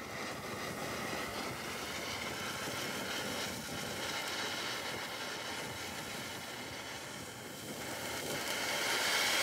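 Ground fountain firework spraying sparks with a steady hiss that starts suddenly and grows louder near the end.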